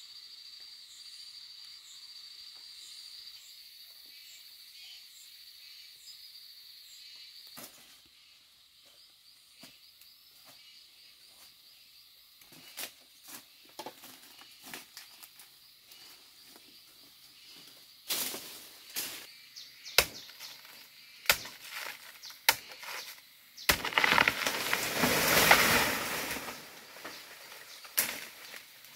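A steady high insect drone that stops about seven seconds in. Then footsteps crunching over dry leaf litter and brushing through undergrowth, with sharp snaps of twigs and a few seconds of loud leaf rustling near the end.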